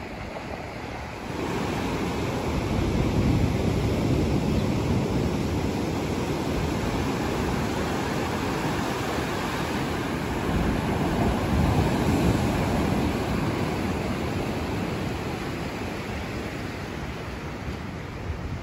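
Mediterranean surf breaking and washing onto a sandy beach: a steady rush that grows louder about a second in and swells twice, with some wind on the microphone.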